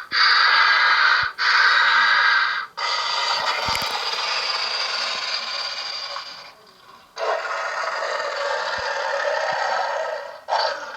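Xenomorph hissing and screeching sound effects played through the built-in speaker of a life-size Alien Xenomorph figure. They come as several rasping bursts of one to a few seconds each, with short breaks between them and a longer one about halfway through.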